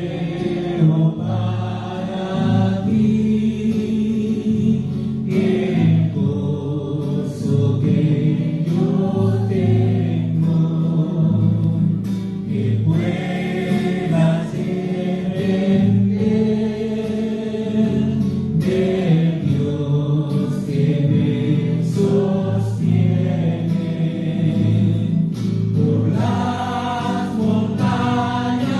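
Worship song: a man singing into a microphone with acoustic guitar accompaniment, continuous sung phrases over held chords.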